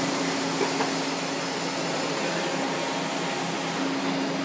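Steady machine hum and hiss from a concrete-block clamp cuber at work, with two light clicks under a second in.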